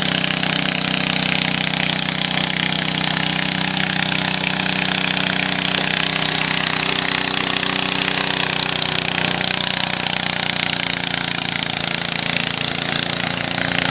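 Antique lawn tractor's small engine, fitted with an upright exhaust stack, running loud and steady under load as it pulls a weight-transfer sled, its pitch holding nearly constant.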